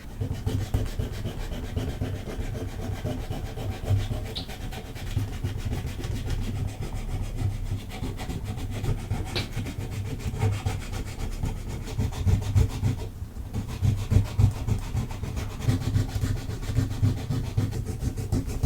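Sandpaper rubbing back and forth over the plastic faces of a Rubik's cube, a continuous scratchy rasp, scuffing the surface so crystal glue will stick.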